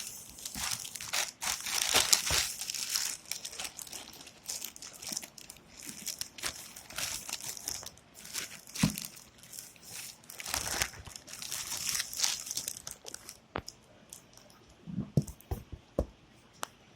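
Plastic packaging crinkling and tearing in irregular handfuls, followed near the end by a few short clicks and knocks as the box is handled.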